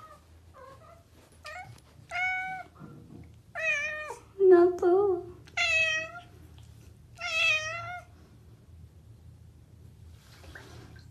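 Domestic cat meowing repeatedly: a string of short meows, louder from about two seconds in, ending in two longer, wavering meows.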